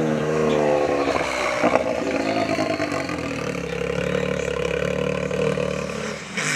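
Engine of an off-road side-by-side buggy driving past. Its note falls over the first second or so, then holds steady as it moves away, with a single knock about two seconds in.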